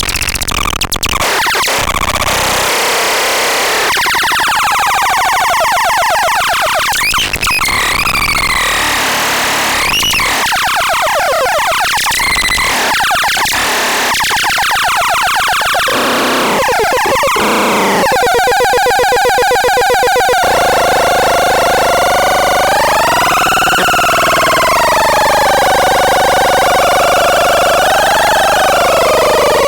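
Electronic synthesizer sounds: harsh noisy sweeps and swooping pitch glides. About two-thirds of the way through it settles into a buzzy tone that slowly wavers up and down in pitch.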